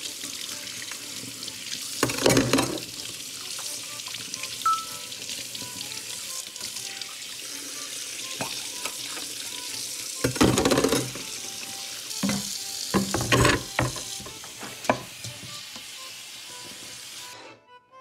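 Kitchen faucet running steadily into a stainless steel sink, with louder splashing bursts as water pours through a gutted fish being rinsed and scraped clean. The water cuts off suddenly near the end.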